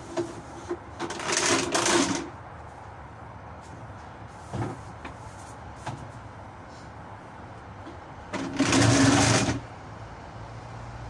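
A woman sneezing twice, loud bursts about a second in and again some seven seconds later: allergic sneezes set off by dust.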